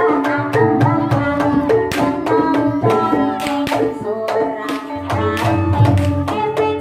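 Gamelan ensemble playing the ebeg accompaniment: a quick run of struck tuned notes over hand-drum strokes, with deep drum beats coming in strongly about five seconds in.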